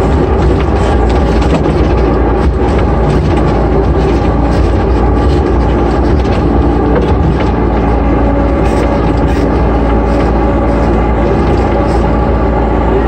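Sunward 5-ton mini excavator's diesel engine running steadily under working load, heard from inside the cab as the boom and bucket dig, with faint scattered knocks.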